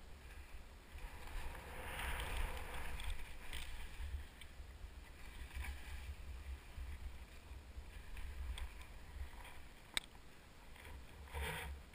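Telemark skis swishing and scraping through shallow powder in turns, over a steady low rumble on the camera's microphone. The swish is loudest about two seconds in, and a single sharp click comes near the end.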